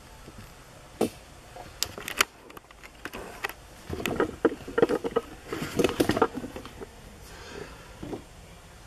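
Handling noise from a handheld camera being carried about: scattered clicks and taps, then a busier run of knocks and rustles in the middle.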